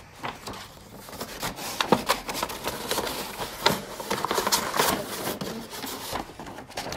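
Paper wrapping inside a cardboard shoebox rustling and crinkling as hands pull it open, with a few sharper knocks of the box being handled.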